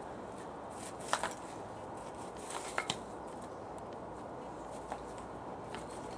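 A deerhound nosing and pawing at a large bone among dry twigs on bare earth: a few short clicks and scrapes, one about a second in, a cluster near three seconds and a faint one near five seconds, over a steady outdoor hiss.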